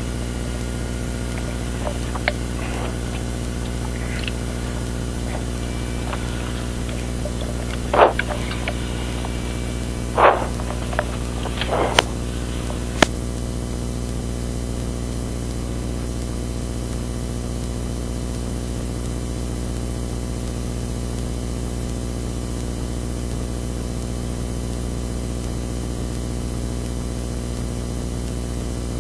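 Mitsubishi Pajero rally car's engine idling steadily, heard from inside the cabin as a constant low hum with a noise haze. A few sharp knocks and clicks come about a third of the way in, two of them louder than the rest.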